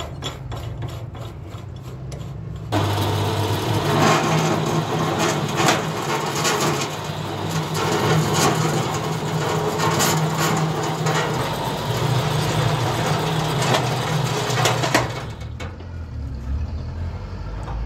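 Motor of a small borehole drilling rig running with a steady low hum. From about three seconds in until about fifteen seconds in, a much louder rough noise with repeated knocks rides over it as the drill works into the ground.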